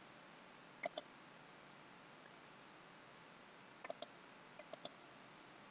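Faint computer mouse button clicks, each a quick press-and-release pair: one pair about a second in, then three more pairs close together around the four- to five-second mark.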